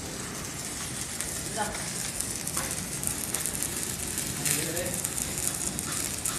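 Stick-welding arc burning on an E6013 electrode: a steady crackling sizzle.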